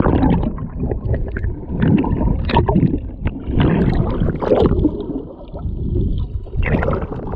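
Muffled water sloshing and gurgling heard through a camera held underwater, with a low rumble; the high end cuts off suddenly right at the start as the camera goes under.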